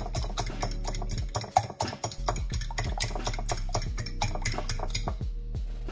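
Wire whisk beating eggs in a glass bowl: fast, rhythmic clicking of the wires against the glass that stops about five seconds in, over background music.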